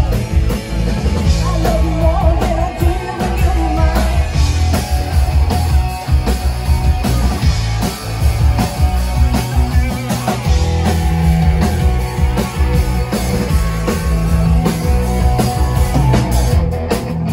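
Live rock band playing loud, with pounding drums and electric guitar over a heavy bass, heard from within the audience. The music cuts in abruptly at the start.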